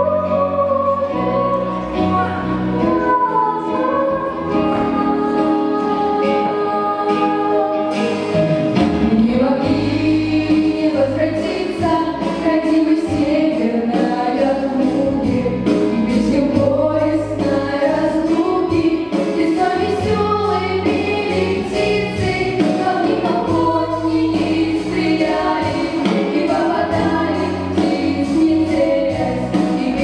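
Girls' vocal group singing a song in harmony into microphones over an instrumental accompaniment; a light beat comes in about eight seconds in.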